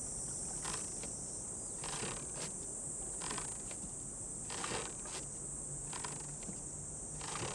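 A wooden ferry boat's hand oar rowing, one stroke about every second and a half, over a steady high buzzing of insects.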